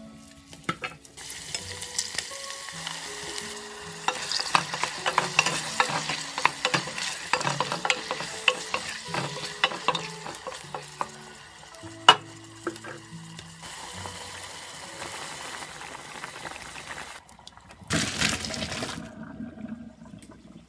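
Chopped tomatoes and red peppers sizzling in hot oil in a pan, stirred with a wooden spoon that clicks and scrapes against the pan, with one sharp knock of the spoon midway through. The sizzling starts about a second in, eases off near the end, then comes back briefly.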